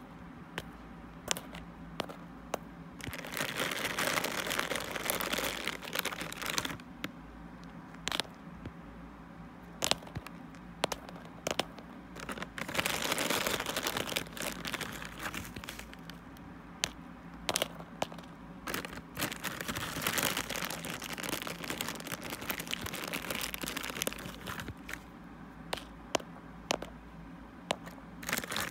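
Mothballs being set down one by one on a bed of crushed moth crystals in a plastic tub: scattered sharp clicks, with three stretches of crunchy, crinkly rustling several seconds apart.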